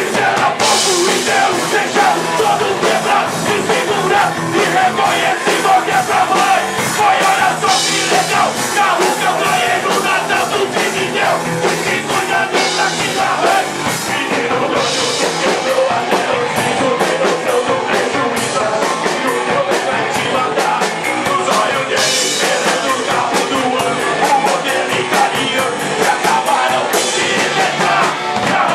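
Rock band playing a song live, loud, with a voice singing over the band.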